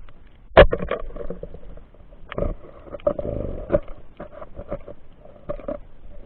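Muffled underwater knocks and bumps, heard through a camera's waterproof housing, as a spear loaded with speared fish is handled close to the camera. The loudest knock comes about half a second in, and there is a rougher rushing stretch around three seconds in.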